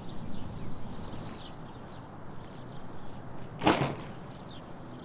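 A dumpster lid slamming shut once, a single sharp bang a little past halfway, over a quiet outdoor background.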